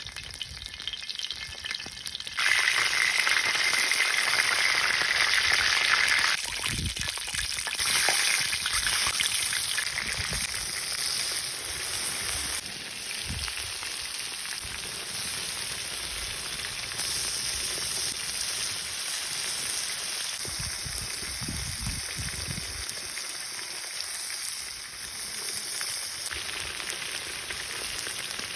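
Food sizzling in hot fat in a pan: a steady hiss that jumps louder about two seconds in, eases back a few seconds later and carries on, with a few low knocks underneath.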